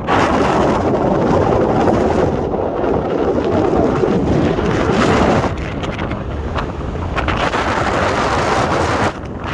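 Wind buffeting the microphone over a steady low rumble, with a brief dropout near the end.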